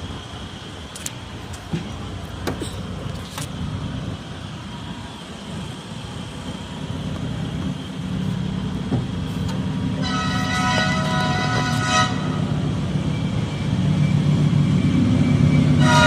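A heavy vehicle engine running and growing louder. A horn sounds for about two seconds, then starts again near the end. A few sharp knocks come in the first few seconds.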